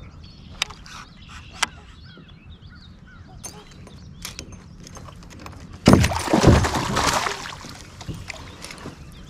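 A hooked pike thrashing at the surface right beside a kayak, a sudden loud splash lasting about a second and a half, a little past the middle. Before it come two sharp clicks about a second apart.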